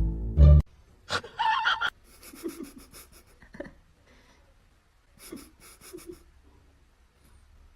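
Music cuts off just after the start. A brief loud pitched vocal sound follows, then two short bouts of quick, breathy panting.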